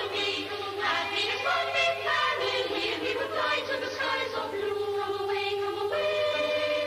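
Soundtrack music: a choir singing a slow melody in held notes.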